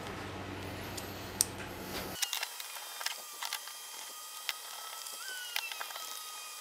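A steady low hum for about two seconds, which then stops abruptly. After it come scattered small metal clicks and taps as a T-handle hex key works the bolts of a CNC spindle mount.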